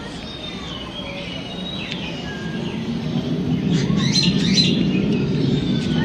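Several birds chirping and whistling in short notes, some sliding up or down in pitch. A low rumble builds from about halfway through and is loudest about four to five seconds in.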